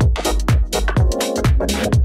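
Background music with a steady kick drum beat, a little over two beats a second, and electronic synth layers above it.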